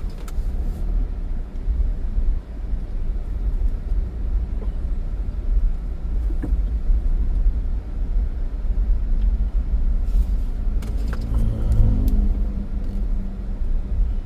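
Steady low engine and road rumble of a car being driven, heard from inside the cabin. The engine pitch rises briefly about ten to twelve seconds in.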